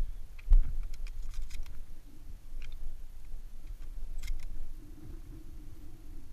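Footsteps and handling on gravelly dirt with a thump about half a second in, then scattered light metallic clicks as shells are pushed into the magazine tube of a Remington 1100 semi-automatic shotgun.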